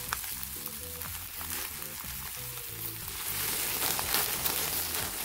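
Beef patties sizzling on a charcoal grill, the hiss swelling about three and a half seconds in as olive oil is poured over them and flares up in the coals. Background music plays underneath.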